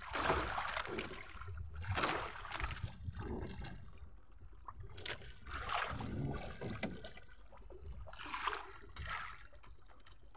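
Water splashing and sloshing against the side of a small fishing boat, in irregular surges every second or two.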